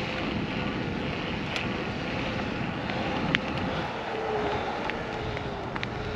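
Electric mountain bike's motor whining steadily under pedal assist on a climb in its highest assist mode, the whine dropping slightly in pitch about four seconds in, with wind rushing over the microphone. A sharp click about three and a half seconds in.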